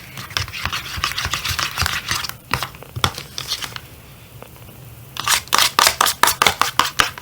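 Jiggly no-glue slime being squeezed and squished by hand, giving quick wet clicks and crackles. A run of louder, sharper clicks, about six a second, follows near the end.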